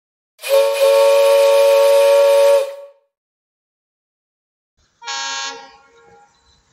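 Train horn sounding twice: a loud, steady two-tone blast of about two seconds, then after a pause of about two seconds a shorter, quieter blast that fades away.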